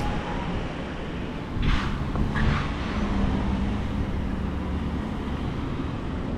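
Road traffic: cars driving past with a steady low rumble, and two short swells of tyre hiss about two seconds in.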